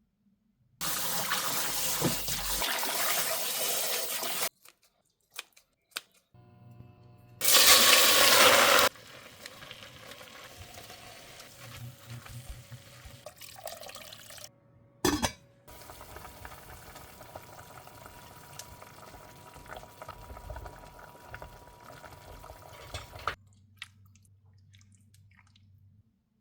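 Kitchen water sounds: a tap running into a sink in two loud bursts, the second the loudest. After that comes quieter steady noise with a single sharp knock about fifteen seconds in.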